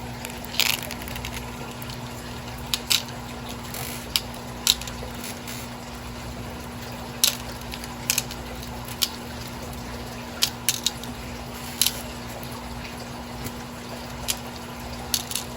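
A dozen or so light, sharp clicks and taps scattered irregularly, from strands of glass and gemstone beads and their packaging being handled, over a steady low hum.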